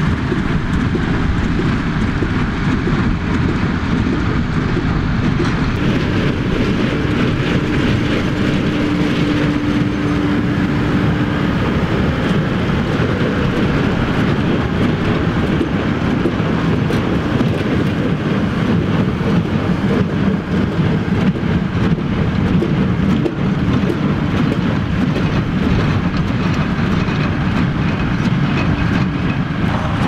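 Farm tractors' diesel engines running steadily, with the mechanical clatter of haymaking machinery.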